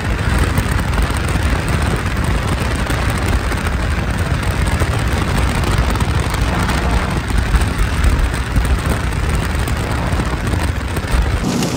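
Steady rush of wind and road noise in a moving vehicle, with a deep rumble of wind buffeting the microphone. It cuts off sharply near the end.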